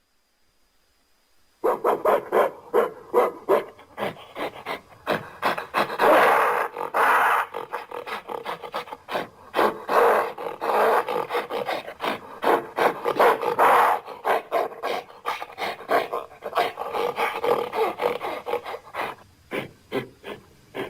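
Gorilla vocal sound effect: a fast, continuous string of rough grunts and barks, several a second, starting suddenly about a second and a half in.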